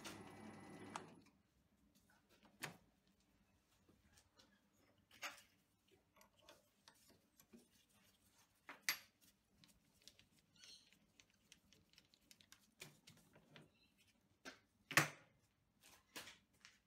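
A lathe's steady running noise stops about a second in. Then mostly near silence, broken by scattered faint metallic clicks and taps as the knurling tool on the toolpost is handled and adjusted, a few of them sharper.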